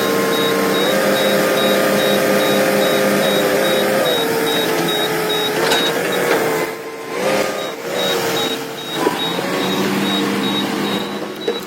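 Heavy earthmoving machinery running, with an engine-and-hydraulic whine that shifts pitch in steps, over a rapid, evenly repeating high-pitched beeping.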